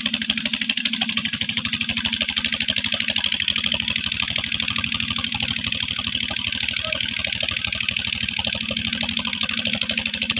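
Mahindra Arjun tractor's diesel engine running under load with a steady, rapid thudding beat, as the tractor strains to pull out of soft sand where it is stuck.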